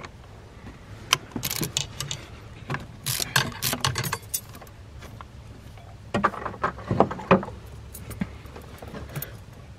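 Hand ratchet with a T30 Torx bit clicking in three short bursts as it backs out a bolt holding a coolant hose to the water pump, with metal tool clinks.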